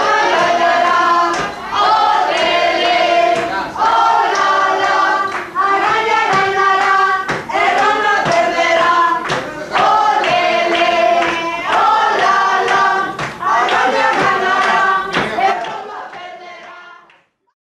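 Many voices singing together in chorus, a phrase repeated over and over, fading out near the end.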